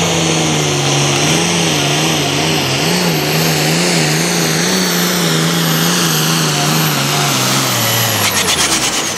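Light pro stock pulling tractor's 466 cubic inch, roughly 1600-horsepower engine at full throttle hauling a weight-transfer sled, its note wavering up and down about twice a second, with a high whine above it. Near the end the engine note and the whine fall away together as the throttle comes off at the end of the pull.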